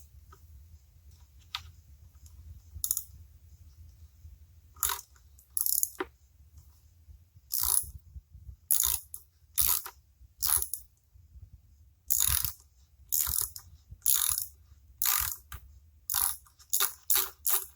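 Ratchet wrench clicking in short bursts as a bolt is worked loose, the strokes coming faster toward the end.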